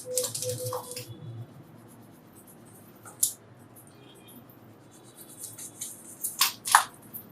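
Short scratching and scraping sounds of handwork on wine cork, busiest in the first second and again near the end, over quiet background music.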